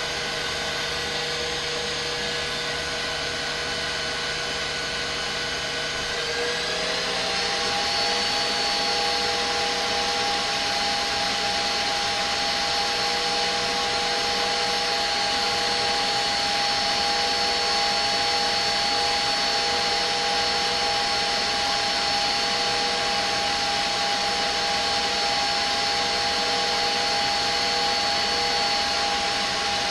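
Electric mixer motor running steadily while whipping cream toward soft peaks. About seven seconds in, its pitch steps up and it gets slightly louder.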